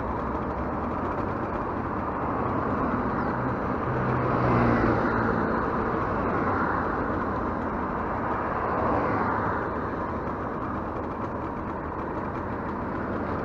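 Motorcycle engine idling at a standstill, with the sound of passing traffic swelling and fading a couple of times.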